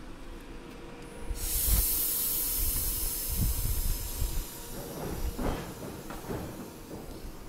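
A sudden loud hiss of air starts about a second and a half in and slowly eases off: compressed air venting from a train's air brake system.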